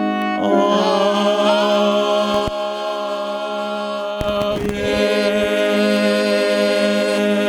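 Choir singing the long held closing chord of a hymn, changing to a second held chord about four seconds in.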